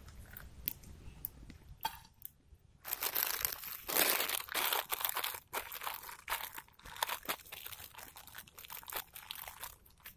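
Crinkling and crunching of an instant noodle cup's paper-foil lid being folded down and pressed closed by hand, in dense irregular bursts starting about three seconds in.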